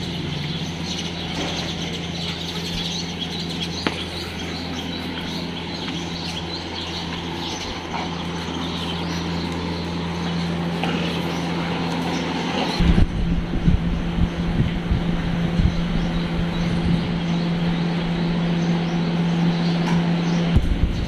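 Steady low mechanical hum with small birds chirping over it. From about halfway through, irregular low rumbling thumps of buffeting on the microphone join in.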